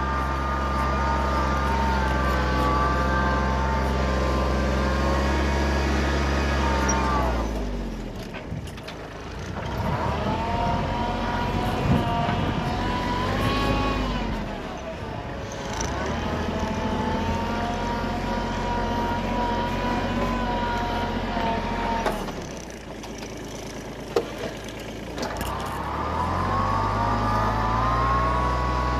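Kubota B1820 compact tractor's diesel engine running steadily under load while pulling a two-furrow plough through dry soil. Its revs and level drop away three times and then climb back.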